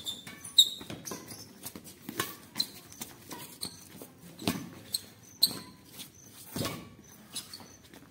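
Badminton rally: rackets striking the shuttlecock in a string of sharp hits, the loudest about half a second in, with shoes squeaking and scuffing on the concrete court between shots.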